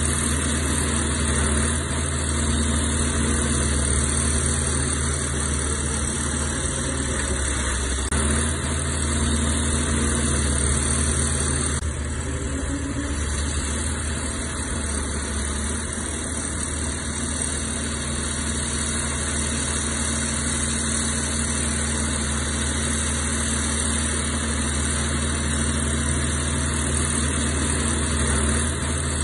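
Heavy diesel engine of earthmoving equipment running steadily at a constant speed, a continuous low hum.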